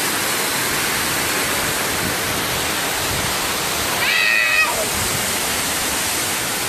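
Waterfall rushing steadily, with one brief high-pitched call about four seconds in.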